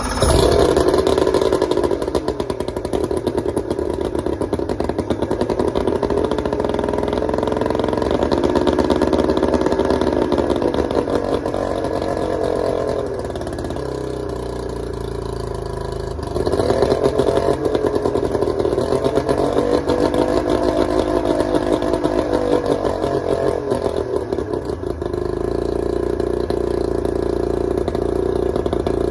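Nissan 90 outboard motor with its cover off, running on choke after two years unused. Its speed rises and falls repeatedly and sags for a few seconds around the middle before picking up again, then settles to a steadier run near the end.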